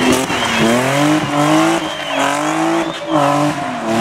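A competition car's engine at high revs, its pitch climbing and dropping about once a second, with a high wavering tyre squeal over it.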